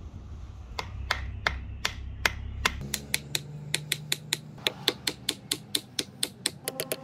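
Light hammer taps driving a wedge into the top of an ebony axe handle to seat the axe head, about two to three taps a second and quickening near the end, with a ringing note under the later taps.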